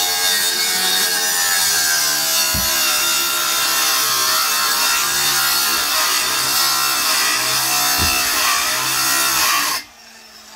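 Handheld electric circular saw cutting lengthwise along a wooden plank, its motor pitch wavering as the blade is loaded; it stops suddenly near the end.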